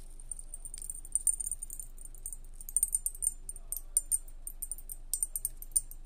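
Silica gel beads crackling in water: many irregular sharp ticks and pops, some in quick clusters, as the beads soak up water and crack apart. This crackling is the speaker's sign of genuine silica gel.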